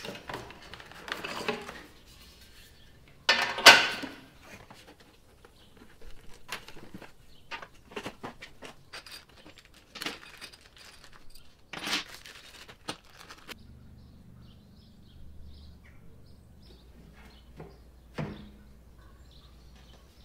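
Cardboard boxes and plastic bags of IKEA SKÅDIS pegboard accessories being handled and unpacked: rustling twice near the start and again about three and a half seconds in, then a run of light clicks and taps. Near the end, a plastic accessory taps against the pegboard as it is hooked on.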